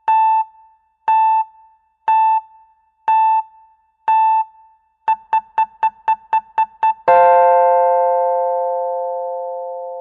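Electronic countdown beeps: a single high tone once a second five times, then quickening to about four a second, ending about seven seconds in on a long held chord that slowly fades.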